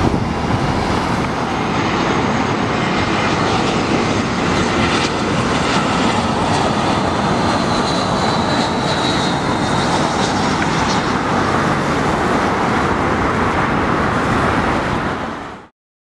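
Jet airliner engines passing low on approach to land: a loud, steady rush with a whine gliding down in pitch partway through. The sound cuts off abruptly near the end.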